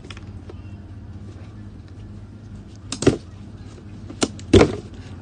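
Cardboard shoe box being handled and its lid pulled open: a few short sharp knocks and taps, the loudest about four and a half seconds in, over a steady low hum.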